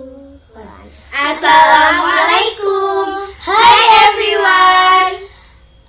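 Young girls' voices singing together in drawn-out phrases with long held notes.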